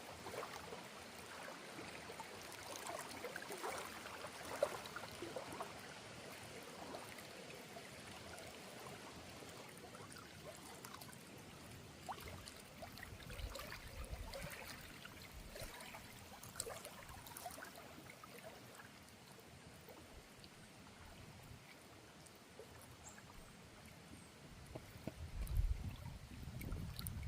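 Water flowing and trickling in a small river, steady and faint, with a low rumble near the end.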